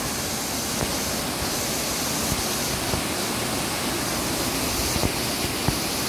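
Steady rush of a small waterfall cascading over stone steps into a river, with a few faint knocks.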